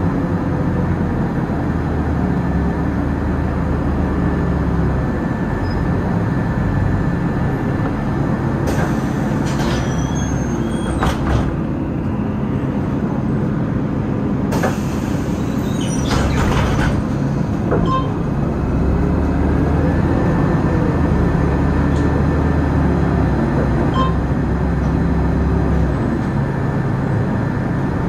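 City bus heard from inside: the drivetrain runs with a steady high whine that falls away as the bus slows and climbs again as it pulls off. In between come two bursts of air hiss a few seconds apart, the pneumatic doors opening and closing at a stop.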